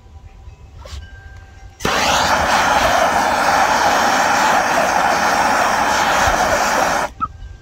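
Gas torch flame running with a loud, steady hissing roar. It starts abruptly about two seconds in and stops suddenly about five seconds later.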